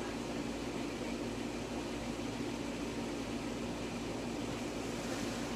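Steady mechanical hum with a constant low drone, from a running machine such as a fan or air-conditioning unit.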